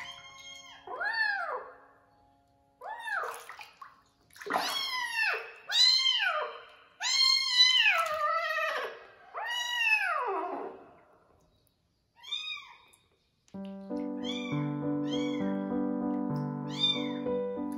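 A very young kitten meowing over and over while being bathed, about ten high cries that each rise and then fall in pitch, the loudest in the middle. Background music comes in about three-quarters of the way through.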